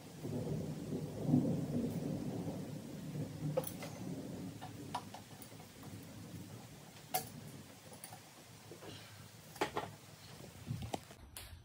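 Hand wrench work loosening the intake manifold bolts on a Jeep 4.0 straight-six: a low rumble of tool and handling noise for the first few seconds, then a few scattered sharp metallic clicks.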